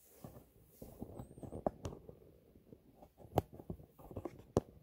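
Handling noise of objects being moved on a desk: scraping and rustling, with several sharp clicks and taps standing out.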